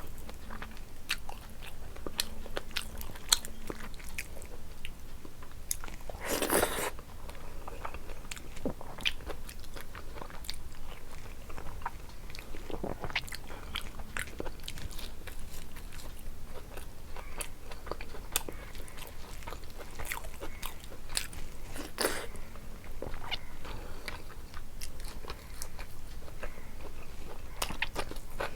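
Close-miked eating: steady chewing with many small crunches and wet mouth clicks, and two louder crunches about six seconds in and again past twenty seconds.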